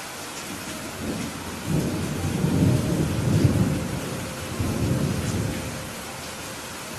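Steady heavy rain with a long roll of thunder that builds about a second in, rumbles deep and loud for several seconds, and dies away near the end.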